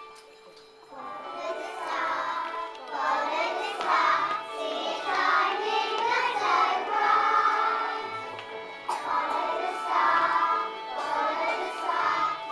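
A group of children singing a song together over an instrumental accompaniment. The singing comes in about a second in.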